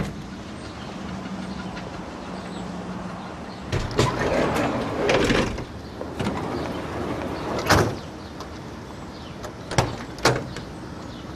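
Ambulance van with its engine idling at first as a steady low hum. Its side sliding door is run along its track and then slammed shut with one loud knock about two-thirds of the way in, followed by two shorter door knocks near the end.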